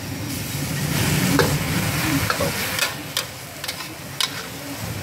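Metal spatula scraping and knocking against a large wok as egg noodles and vegetables are stir-fried, over a steady sizzle of frying. There are several sharp clacks, and the sound is a little quieter in the second half.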